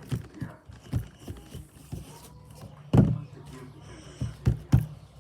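Hands working Play-Doh on a tabletop, softening it: a few dull knocks from pressing and patting, the loudest about three seconds in and two close together near the end.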